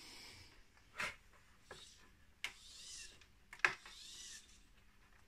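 3D-printed plastic parts of an InMoov robot's shoulder rubbing, with four sharp clicks about a second apart, as the shoulder piston is turned by hand to free the arm.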